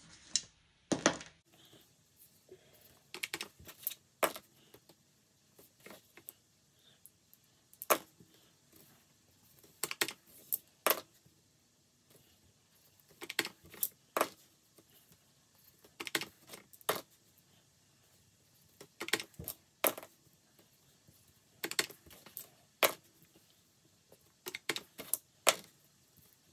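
A pair of dice rolled again and again on a tabletop, each roll a short clatter of clicks, repeating every few seconds.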